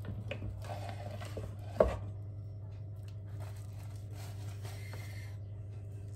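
A silicone spatula and spoon scrape mashed potato out of a stainless steel saucepan into a plastic container, in two spells of scraping. There is one sharp knock about two seconds in. A steady low hum runs underneath.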